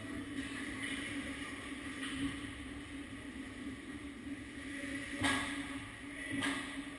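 Ice rink ambience: a steady low hum fills the arena, with two sharp knocks about a second apart a little over five seconds in.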